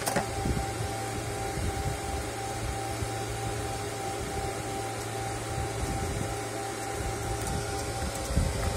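Steady whirring hum of the cooling fans on stacked rack-mounted radio equipment units, with a faint steady tone above it.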